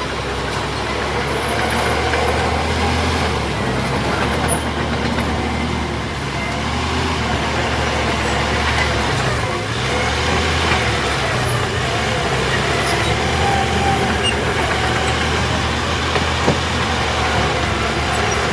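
Heavy diesel earthmoving machinery running continuously, a steady low engine drone with mechanical noise over it.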